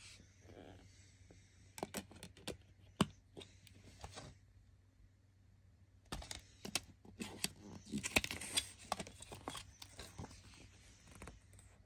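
A plastic CD jewel case being handled, with a series of sharp clicks and taps and some rustling. The clicks and rustling come thickest between about seven and nine and a half seconds in.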